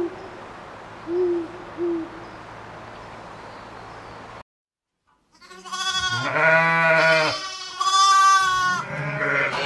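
Spectacled owl giving two short, low hoots, then, after a brief gap of silence, sheep bleating loudly three times in long bleats.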